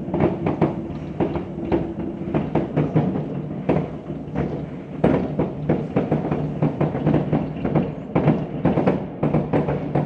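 Many fireworks and firecrackers going off in a dense, continuous barrage: sharp bangs and cracks, several a second, over a steady low hum.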